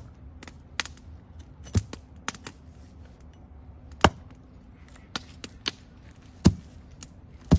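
Yellow-handled axe chopping firewood on a log block: a series of sharp, separate chops, four heavy ones with lighter knocks between.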